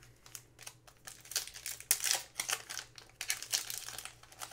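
Foil trading-card pack wrappers crinkling as they are handled and torn open, in irregular sharp crackles.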